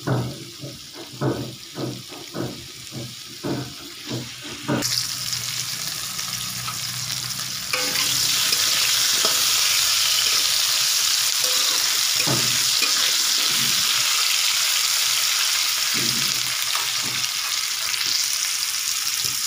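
Potato chunks frying in oil in a kadai. At first a spatula stirs them in short strokes, about two a second, and about five seconds in a steady sizzle sets in, growing louder a few seconds later.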